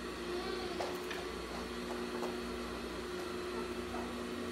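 Steady hum of an industrial sewing machine's motor running without stitching, with a few faint light clicks.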